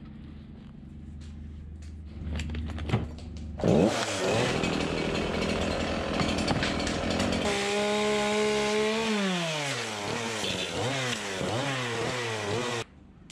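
Echo chainsaw idling, then revved up a few seconds in and cutting into a wooden log. It then runs at a steady high pitch, drops, and is revved up and down several times before cutting off suddenly near the end.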